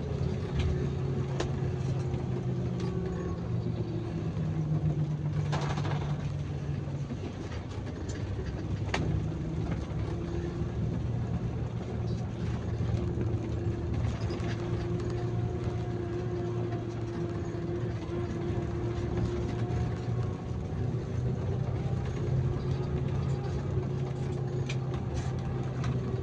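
Bus engine running steadily while driving, heard from inside the cab, with the road noise under it; the engine note steps up for a few seconds near the start and drops back about seven seconds in.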